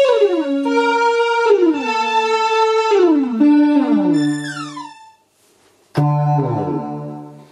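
Casio CTK-541 electronic keyboard sounding its tone 76, Synth-SFX: about six overlapping synth notes, each sliding down in pitch, then a short pause and a new lower sustained note about six seconds in.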